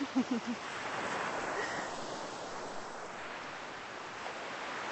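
Ocean surf washing onto the beach, a steady hiss of breaking waves.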